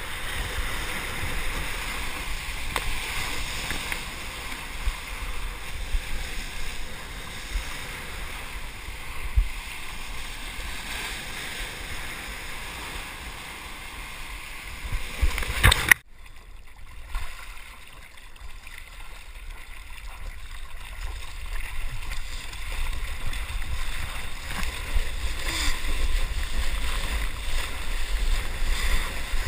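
Water rushing and splashing along a surfboard as it rides a small wave, with wind buffeting the microphone. About halfway through a loud splash is followed by a sudden drop to a quieter wash, which builds up again toward the end.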